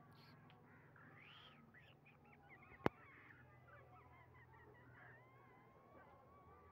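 Faint bird calls and chirps, with one sharp click about three seconds in.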